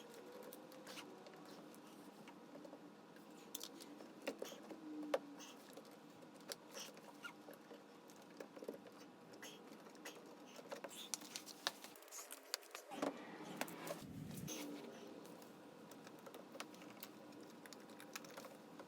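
Faint, irregular small clicks and light taps from hard objects being handled, with one sharper click about five seconds in.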